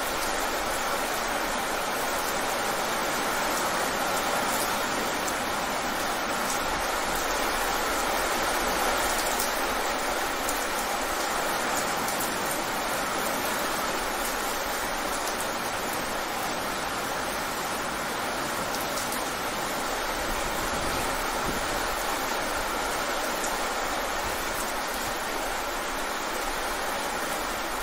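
Fast, steady rain falling on wet pavement: an even splashing hiss of many drops.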